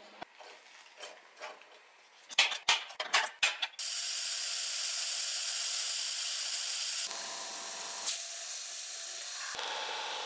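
A quick run of sharp mechanical clicks, then a steady hiss of mist coolant spraying while a drill bores into an aluminium plate, and near the end a belt sander grinding an aluminium plate.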